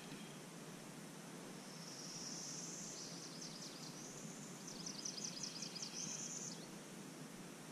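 A high-pitched buzzy call from a small animal. It holds for about a second, breaks into a fast pulsing trill of roughly ten beats a second, then buzzes again before stopping, over a faint steady hiss.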